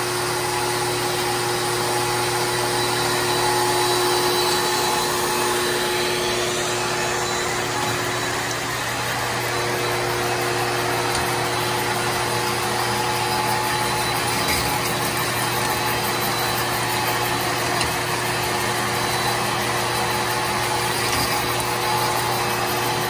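Cylinder hone running, its honing head turning inside a hydraulic cylinder barrel to cut the crosshatch into the bore. It makes a steady machine hum with several constant tones.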